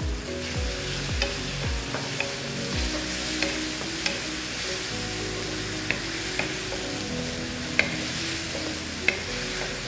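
Sliced vegetables and blended onion frying in hot oil in a nonstick wok, sizzling steadily as a wooden spatula stirs and turns them, with a few light taps of the spatula against the pan.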